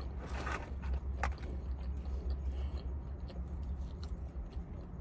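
A person chewing and biting a mouthful of chicken sandwich, with a few soft clicks of the mouth, over a steady low hum.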